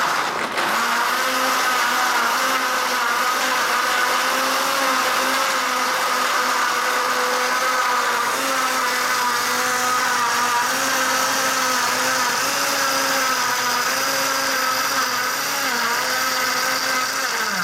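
Countertop blender running at a steady speed, blending a shake with plenty of ice. Its motor whine wavers slightly in pitch as the load shifts.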